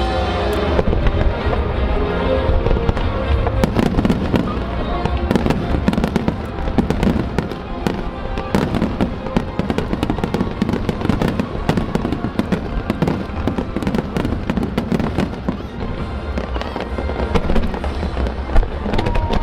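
Fireworks bursting in a rapid, dense barrage of booms and cracks, with music playing along with the show.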